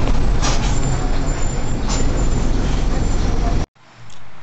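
Inside a moving city bus: a loud, steady low rumble of engine and road noise with occasional rattles. It cuts off abruptly about three and a half seconds in.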